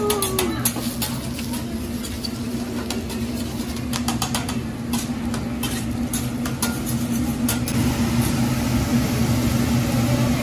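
Hibachi chef's metal spatulas tapping and scraping on the steel flat-top griddle, irregular sharp clicks that stop about eight seconds in. Under them runs the steady low hum of the exhaust hood over the griddle.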